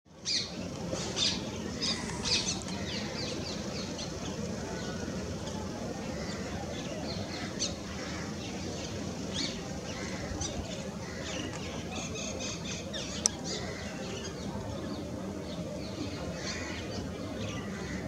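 Many small birds chirping and calling in short, scattered high notes, with the louder calls in the first few seconds, over a steady low background rumble. A single sharp click about 13 seconds in.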